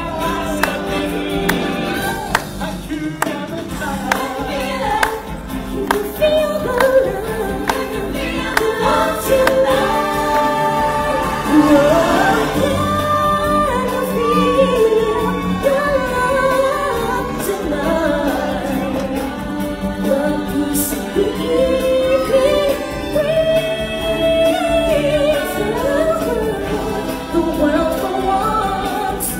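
Live stage-show music: a choir and a lead singer sing a slow, held melody over the band backing.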